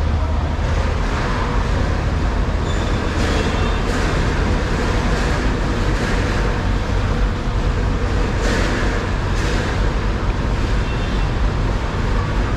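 Steady street-side din with a low rumble, like road traffic.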